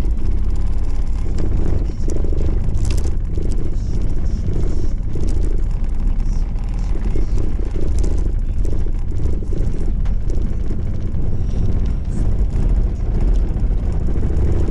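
Low, steady rumble of a Subaru XV driving slowly, heard inside the car's cabin, with a few faint light ticks.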